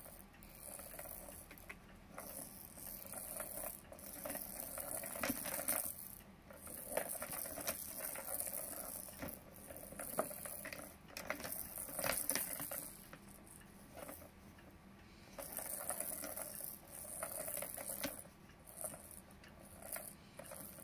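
Small plastic balls rolling and rattling around the circular tracks of a three-tier plastic ball-track cat toy as a cat bats at them, with sharp clicks as the balls are knocked against the plastic walls.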